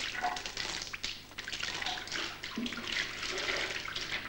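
Molten wax poured from a pot down a hanging candle wick: a steady pouring, splashing trickle of liquid.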